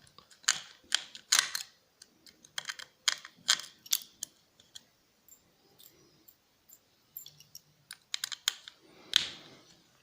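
Irregular sharp clicks and taps of a small metal tool on the opened laptop hard drive's metal parts, working to free the neodymium magnets, with a quieter stretch midway and a longer scrape near the end.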